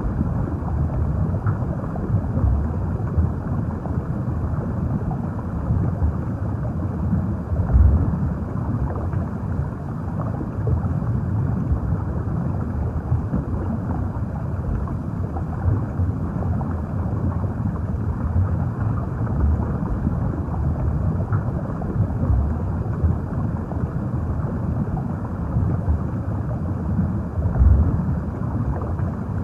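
Underwater ambience: a steady, muffled low rumble and wash of water with no distinct events, swelling a little louder about a quarter of the way in and again near the end.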